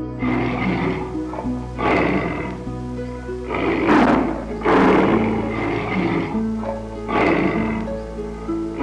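Background music with short, rough calls over it every second or two. The later, louder calls are a tiger snarling.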